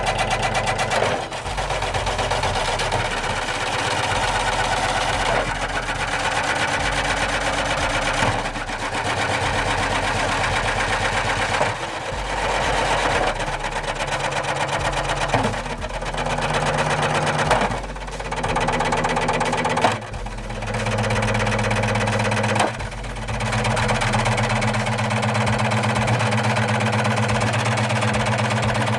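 Washing machine running its drum at speed with hard objects inside clattering rapidly, over a steady motor hum. The sound briefly drops out and resumes several times.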